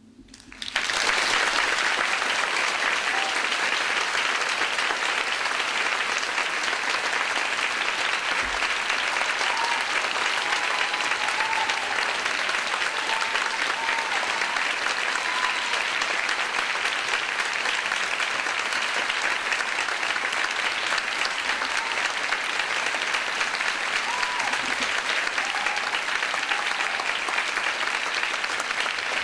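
Large audience applauding, the clapping breaking out suddenly less than a second in and then holding steady, with a few faint calls from the crowd over it.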